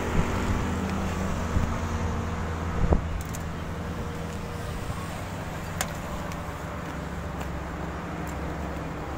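Hino 300 truck's diesel engine idling steadily, with a couple of light clicks over it.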